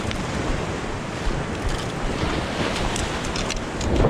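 Sea waves washing and breaking against a concrete seawall, a steady rush of surf with wind buffeting the microphone.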